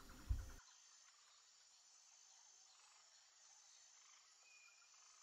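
Near silence: a brief low thump just after the start, then the recording's background hiss cuts out abruptly, leaving only faint thin high tones.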